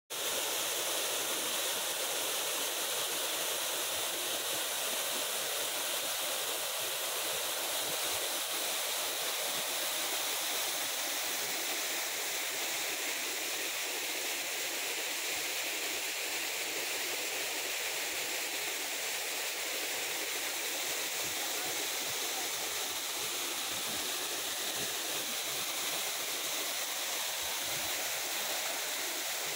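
Water from an overflowing lake tank pouring over a stone weir and splashing onto the rocks below: a steady, unbroken rush.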